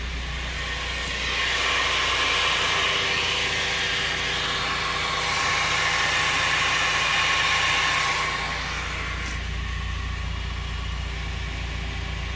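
2003 Mazda Miata NB's drivetrain and engine running at low revs, heard from inside the cabin: a steady low hum with a faint steady tone on top, swelling louder from about 2 to 8 seconds in and then easing off. It is the speed-related noise that the owner suspects is in the transmission, having ruled out the wheel bearings and the differential oil.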